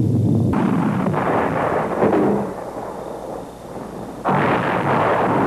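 Roar of a solid-fuel anti-ballistic interceptor missile launching, starting abruptly about half a second in and easing after about two seconds. A second sudden, loud blast of launch noise comes about four seconds in as a missile leaves its silo launch cell.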